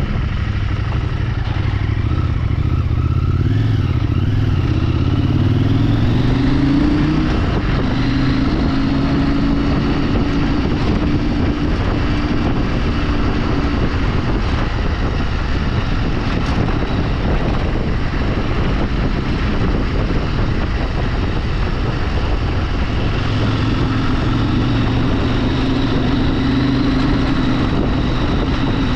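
A motorcycle engine running under way, its pitch climbing with the revs over the first few seconds and holding steadier afterwards. A steady rush of noise lies under it throughout.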